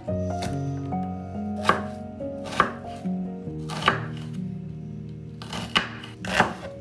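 Chef's knife chopping an onion on a wooden cutting board: sharp knocks of the blade striking the board, about one a second, over background music.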